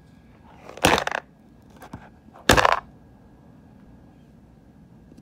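Two short, loud knocks with a brief clatter, about a second and a half apart: a cardboard Pokémon card box being handled and set down on a glass desktop. A faint steady high whine runs underneath.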